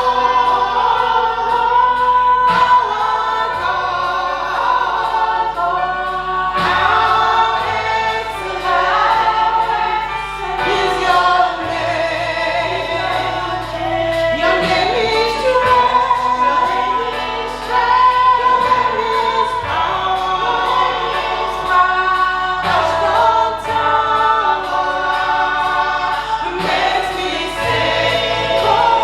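Church choir singing a gospel worship song, voices sustained and blended over steady musical accompaniment.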